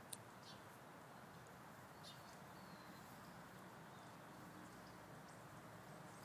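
Near silence: a faint steady outdoor hiss, with a few short, faint high bird chirps scattered through it and one brief click just after the start.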